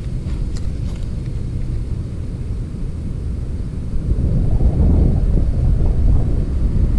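Low rumble of wind buffeting the camera microphone mixed with traffic noise from the road alongside, growing louder about four and a half seconds in.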